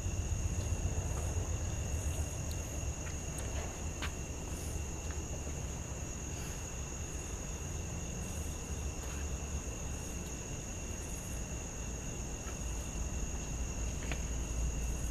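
Crickets trilling steadily at two high pitches, over a low steady rumble.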